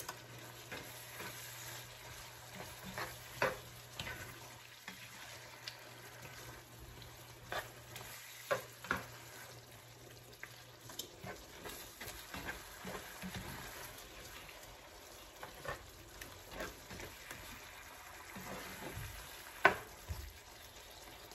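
Pork cooking in coconut cream in a skillet, a low sizzle, while a spatula stirs and scrapes the pan with scattered clicks and knocks.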